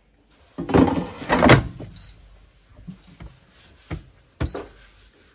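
Ultenic air fryer's basket drawer pushed shut into the machine, a loud scraping clatter about a second in. Short high beeps from its touch control panel follow, once at about two seconds and again near the end, with light taps between.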